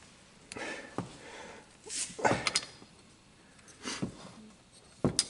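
Metal clicks and knocks from handling a small engine's cylinder head and rocker arms on a workbench, a few separate sounds with the loudest about two seconds in and sharp clicks near the end.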